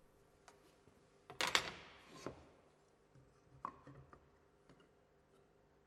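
Faint handling of woodworking marking-out tools against timber: a short knock and scrape about a second in, then a light click and a few soft ticks.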